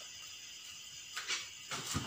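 A cloth rubbed over an empty iron tawa (flat roti griddle), wiping it clean: a few short scraping rubs about a second in and again near the end, over a quiet background.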